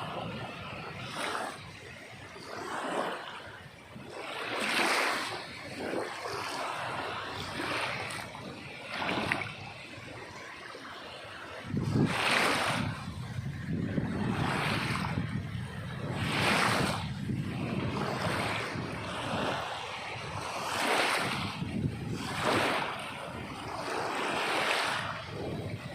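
Sea waves washing ashore, the surf swelling and breaking every couple of seconds, with a fuller, deeper rush from about twelve seconds in.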